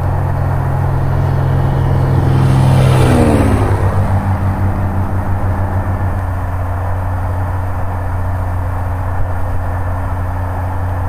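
Cessna L-19 Bird Dog's six-cylinder Continental O-470 engine and propeller on a low pass down the runway. The engine note grows louder, drops in pitch about three seconds in as the plane goes by, then runs on as a steady drone.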